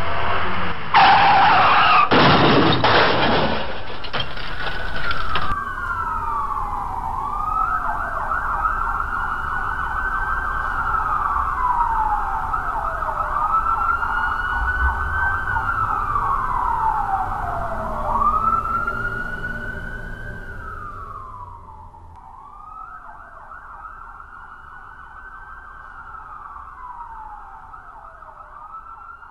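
Ambulance siren wailing, rising and falling in pitch about every three seconds and growing fainter over the last third. Before it comes a few seconds of loud, harsh noise with several sharp hits.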